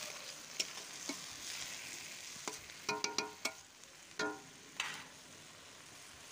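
A spatula stirring leafy greens into boiling broth in a wide metal karai (wok): a string of knocks and scrapes against the pan over a steady simmering hiss. The knocks stop about four and a half seconds in, leaving only the simmer.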